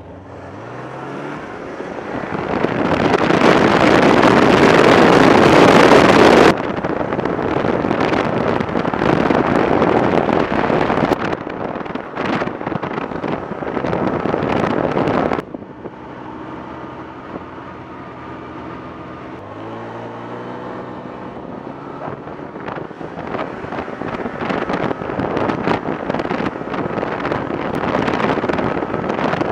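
Snowmobile engine accelerating and running at speed, its pitch rising about a second in and again about two-thirds of the way through, with wind buffeting the microphone. The sound jumps abruptly twice.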